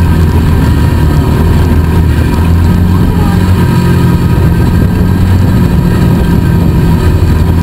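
Polaris RZR 170 youth side-by-side's small single-cylinder four-stroke engine running steadily while driving, heard from on board, its pitch shifting only slightly.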